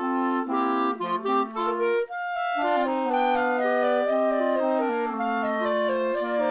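Instrumental music in several parts, wind instruments holding notes together in moving chords. The sound drops out briefly about two seconds in.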